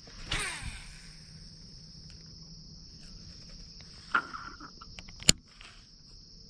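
Steady high-pitched insect chorus. About a third of a second in, a short whir falls in pitch, and a single sharp click comes a little past five seconds.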